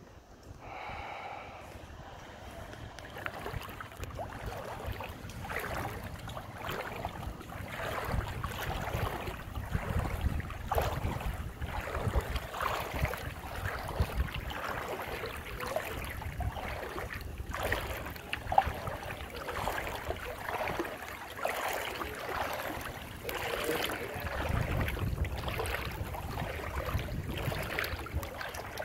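Floodwater sloshing and splashing with each wading step, about a step a second, over a low rumble of wind on the microphone.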